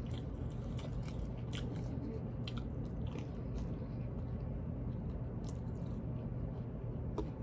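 A person biting and chewing spicy chicken McNuggets close to the microphone, with scattered small crunchy clicks over a steady low hum.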